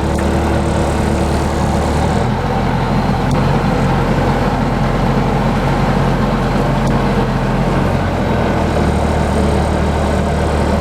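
Engine of a vehicle hauling a load of logs, running steadily at low speed over rough, muddy ground; the engine note shifts about two seconds in and again near the end.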